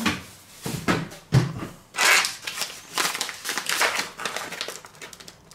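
Food packaging crinkling and rustling as it is handled, in irregular bursts, with a single dull knock about a second and a half in.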